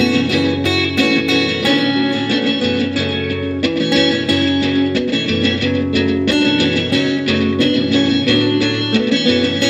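Guitar music: plucked guitar notes in quick succession over a lower sustained bass line, playing steadily.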